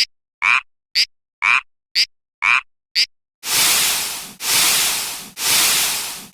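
Cartoon railroad-crossing warning sound effects: short sounds about twice a second, alternating a high tick with a lower tone, then from about three and a half seconds in a series of hissing bursts, each about a second long.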